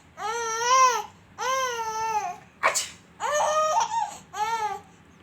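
A baby squealing with laughter in four long, high-pitched, drawn-out shrieks, each rising and falling, with a short sharp breathy burst between the second and third.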